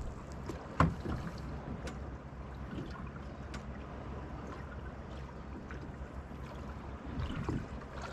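Small motorboat on a calm sea: water lapping at the hull over a low steady hum. A few light knocks sound on board, the sharpest about a second in.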